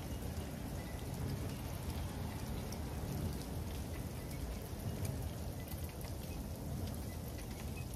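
Freezing rain falling steadily, drops ticking sharply and densely on hard surfaces, over a steady low rumble.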